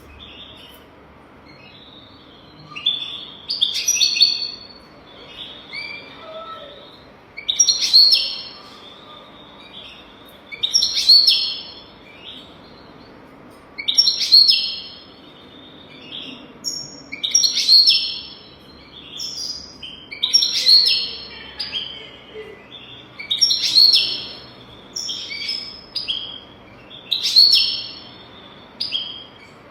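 European goldfinch singing a tutor song: short, bright, twittering phrases repeated about every three seconds.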